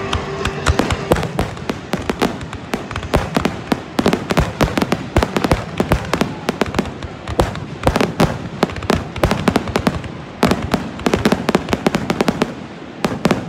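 Fireworks display: aerial shells bursting in a rapid run of sharp bangs and crackles, many a second, with a brief lull about ten seconds in.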